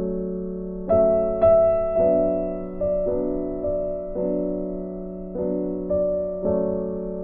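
Background music: a slow instrumental melody of sustained notes, a new note starting about every half second to a second.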